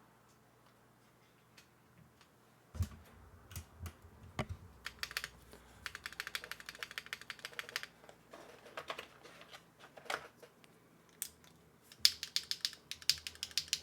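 Mechanical keyboard being typed on: a Neo65 with Akko × HMX Stellar Rose deep-clack switches, carbon fibre plate, no foam and GMK keycaps, sounding pretty clacky. Quiet for the first few seconds, then single key strokes and fast runs of typing.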